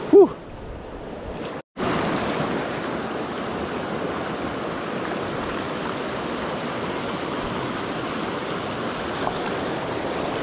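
Fast river current rushing and splashing over rocks close around the wader, a steady even rush. A short vocal sound at the very start; the sound cuts out for a moment just under two seconds in, then the rush comes back steady and a little louder.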